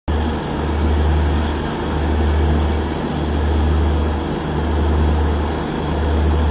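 Diesel locomotive engine running with a low, steady drone that swells and fades evenly, about three times in four seconds.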